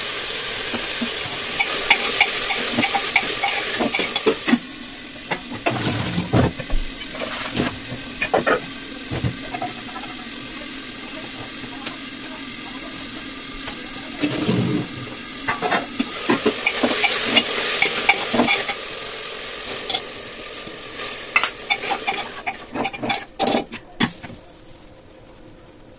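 Water running and sloshing in a steel pot at a kitchen sink, in two spells of hissing, with metal clanks and clinks from the steel pots. Near the end there is a quick run of metallic clicks as the whistle weight is set onto the aluminium pressure cooker's lid.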